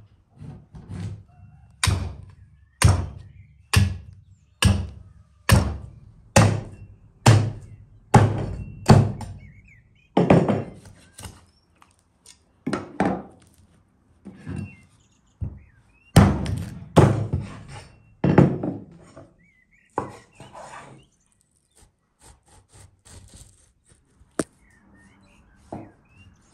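Rack of lamb being chopped on a wooden cutting board: a run of sharp chopping blows about one a second, then irregular thuds, with lighter cutting sounds near the end.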